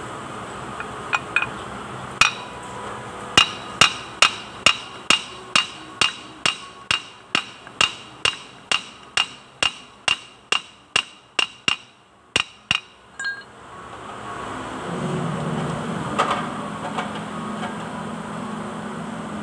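A hammer tapping steadily on the metal front axle housing of a Kubota Bultra B16 tractor, about two sharp ringing strikes a second, during an axle oil seal job. The tapping stops about two-thirds of the way in, and a steady low hum rises near the end.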